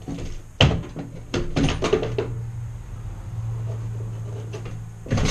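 Clicks and knocks from a metal access panel on the side of an Airstream trailer being worked loose by hand, with a low steady hum through the middle and a loud clunk near the end.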